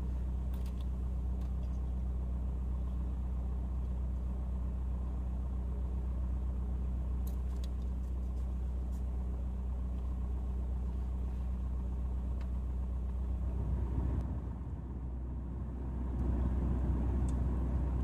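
Steady low hum of a vehicle engine running, heard from inside the car, with faint hiss from the CB receiver. The hum dips briefly about fourteen seconds in and picks up again near the end.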